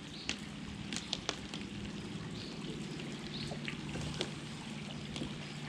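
Rain falling on the river around a small boat: a steady patter with scattered sharp ticks of single drops landing close by.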